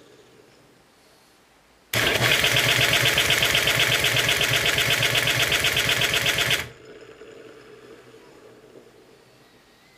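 Small geared electric starter motor cranking a 43cc two-stroke chainsaw engine through white plastic gears, a loud, fast, even mechanical rattle and whir. It starts about two seconds in, runs for about four and a half seconds, and cuts off abruptly as the starting cycle ends.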